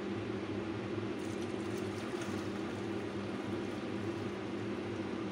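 Warm spiced milk poured from a saucepan through a stainless-steel mesh strainer into a bowl, faint under a steady low background hum.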